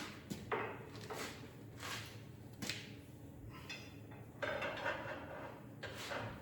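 Scattered knocks, clicks and scrapes of metal parts and tools being handled while an engine is worked down into its mounts, with a longer scraping stretch about four and a half seconds in.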